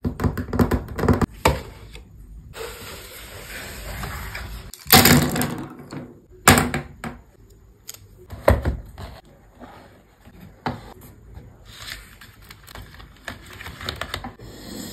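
Hands setting art supplies down on a wooden tabletop: irregular knocks and clatters on wood, the loudest about five and six and a half seconds in.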